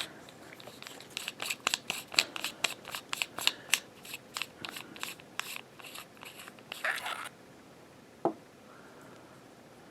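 Metal lightsaber hilt being handled to take out its kill key: a run of small metallic clicks, about three to four a second, then a brief scrape and a single knock near the end.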